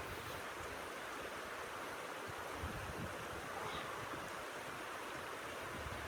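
Blizzard wind blowing steadily, a constant rushing hiss with gusty low buffeting on the microphone.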